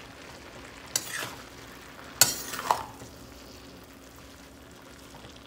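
Metal spoon stirring shredded cabbage in a stainless-steel pan, with a low sizzle as the cabbage's released water cooks off uncovered. The spoon strikes the pan sharply three times, about a second in and twice more around two to three seconds in.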